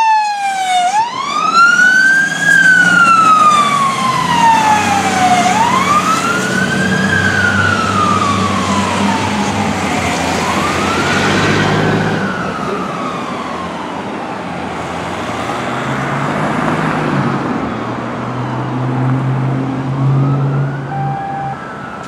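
2005 Seagrave Marauder fire engine's siren wailing, each cycle rising quickly and falling slowly over about four to five seconds, fading as the engine drives away. A low engine and traffic rumble runs underneath.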